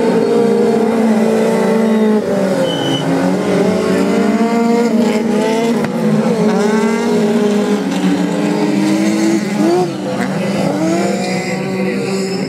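Several rallycross race cars' engines revving hard as they race together. Their pitches climb and drop repeatedly with throttle and gear changes.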